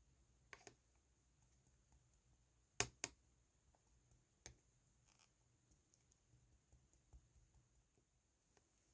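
Near silence with a few faint clicks from mixed slime being handled. Two sharper clicks come close together just under three seconds in.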